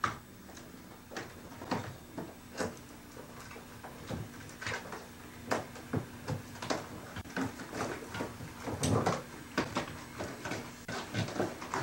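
Irregular knocks, clicks and rustling of a Bike Friday folding bike's padded handlebars and wheel being pushed and fitted into a hard-shell suitcase, with a louder bump about nine seconds in.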